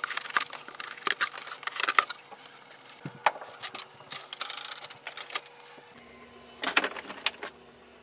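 Unboxing handling noise: scissors cutting box tape, and packing tape and wrapping being peeled and pulled off a new printer. It comes as runs of sharp clicks, crackles and rustles in three short bursts.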